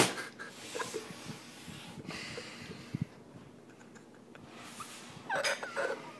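A man snorting and breathing hard through his nose: one loud snort at the start, quieter breathing, then a run of short snorts near the end.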